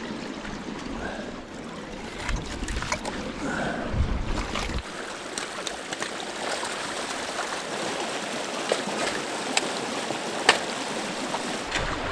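Creek water rushing and trickling through a breach being opened in a beaver dam of sticks and mud. Scattered sharp snaps and knocks come from sticks and a shovel working the dam, with a few heavier thumps in the first half.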